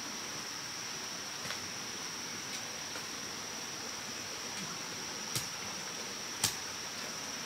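Insects in a steady high-pitched drone, with a few sharp knocks, the loudest about six and a half seconds in.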